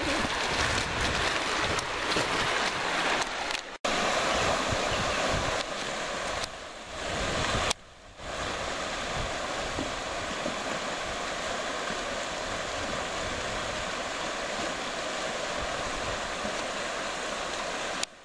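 Steady rushing of river rapids, a constant water noise that drops out briefly a few times.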